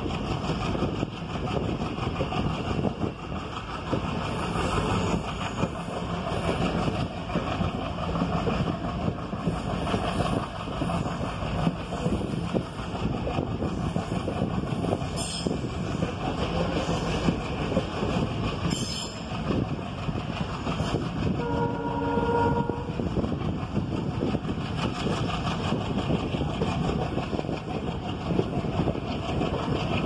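Passenger train running steadily, heard from inside a moving coach: continuous wheel-and-rail noise and rushing air. About two-thirds of the way through, the train's horn sounds once for about a second and a half.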